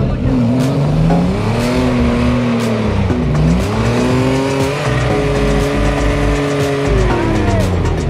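Off-road 4x4's engine revving hard as it claws up a steep, loose dirt slope with its wheels spinning in the dust. The revs dip about three seconds in, climb and hold high, then drop near the end. Background music with a steady beat plays underneath.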